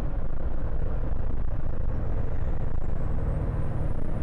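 Ford 7.3 Powerstroke turbo-diesel V8 in an F-250, heard from inside the cab while cruising at highway speed on newly replaced fuel injectors: a steady low engine drone mixed with road and wind noise. A faint high whistle comes in about halfway through, rising slowly in pitch and then holding.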